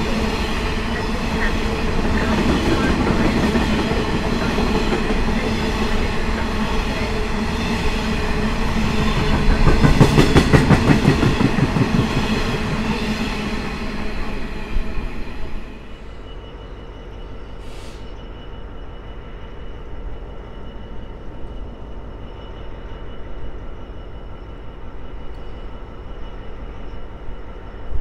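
Freight train rolling past, its wagons rumbling and the wheels clattering rapidly over the rail joints, loudest about ten seconds in. The sound drops away sharply about sixteen seconds in as the end of the train passes, leaving a much fainter steady background.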